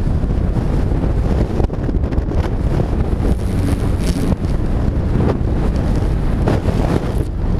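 Wind buffeting the microphone of a camera mounted on a flying kite: a loud, steady, low rumble of air rushing past.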